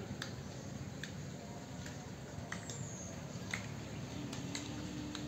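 Faint outdoor ambience: a steady low background hum with scattered light clicks and a brief high falling whistle about midway. A faint steady tone comes in near the end.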